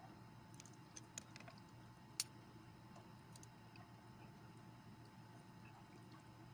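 Quiet eating with a metal spoon: a few faint, sharp clicks over near silence, the sharpest about two seconds in.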